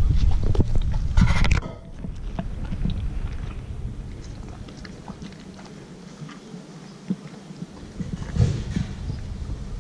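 Dog chewing and mouthing a piece of raw sheep offal: irregular wet smacks and clicking bites, with a louder cluster near the end. A loud low rumble covers the first second and a half and cuts off suddenly.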